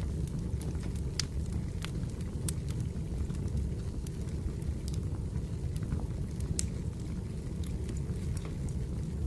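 Firewood burning: a steady low rush from the fire, with irregular sharp crackles and pops from the wood, a few of them louder.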